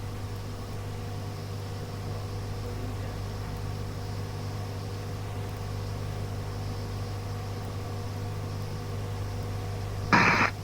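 Steady low hum and hiss of a radio receiver on an open air-traffic channel between transmissions. A short burst of a keyed transmission comes about ten seconds in.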